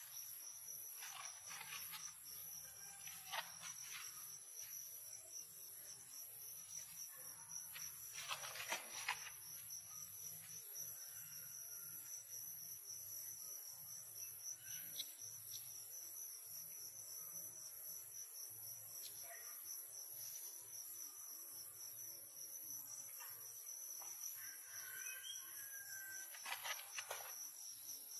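Steady, high-pitched chirring of insects, faint and unbroken, with a few brief rustling bursts, the clearest about a third of the way in and near the end.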